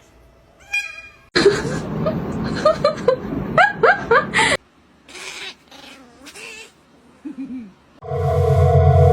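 Domestic cat meowing and yowling in a rapid series of short rising and falling cries over loud noise, then a single falling call. Steady music starts near the end.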